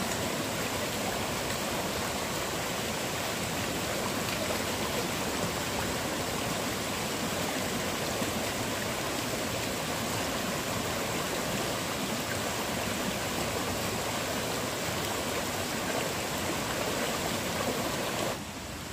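Shallow stream rushing steadily over rocks and stones, then falling suddenly quieter near the end.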